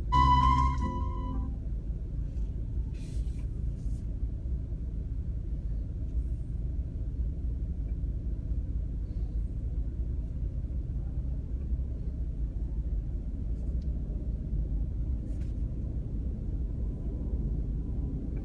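Steady low rumble of a car driving, road and engine noise heard from inside the vehicle. A brief pitched tone sounds for about a second and a half right at the start.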